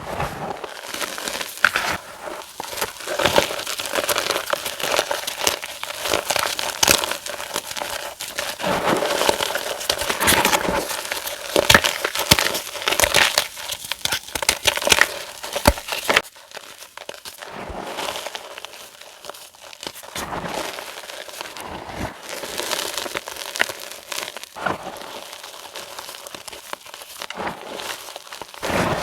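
Reformed gym chalk being crushed and crumbled, a dense run of crunchy, crackling breaks. It gets quieter and sparser a little past halfway.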